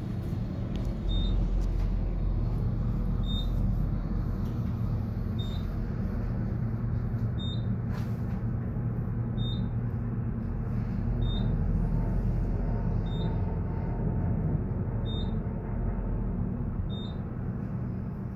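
Fujitec elevator car travelling between floors: a steady low hum swells about a second in and eases off near the end. A short high beep sounds about every two seconds throughout.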